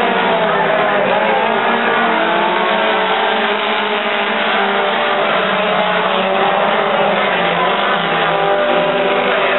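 Several dirt-track race cars running hard around the oval together, their engines overlapping, with pitches rising and falling.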